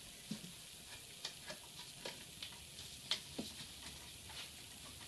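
Faint, irregular small clicks and taps, a dozen or so, from hands fitting a new fuel filter in its rubber collar into its bracket in a car's engine bay.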